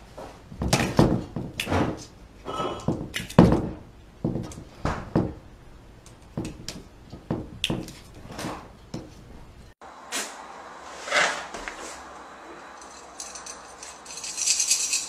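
Irregular knocks and thuds as a cat jumps up and scrambles into a tall ceramic floor vase, the pottery knocking under its weight. About ten seconds in, the sound gives way to softer scuffling, with a higher hiss near the end.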